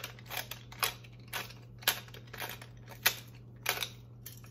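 Wooden pepper mill grinding black peppercorns, a short scratchy crunch with each twist of the mill, about two a second.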